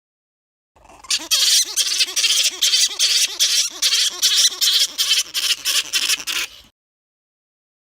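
Flying foxes screeching and chittering: a fast, dense run of shrill calls that starts about a second in, lasts about six seconds and cuts off suddenly.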